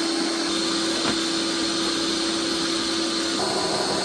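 Ninja Creami ice cream maker running steadily, its spinning paddle grinding a frozen pint of yogurt and berries into a sorbet. Its steady hum shifts slightly about three and a half seconds in.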